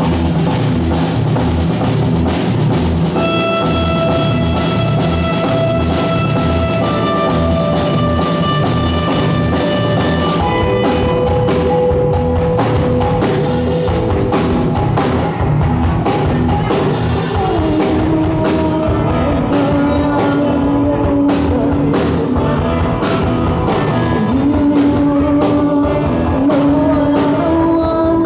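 Live rock band playing: drum kit, bass guitar and electric guitar, with a woman singing.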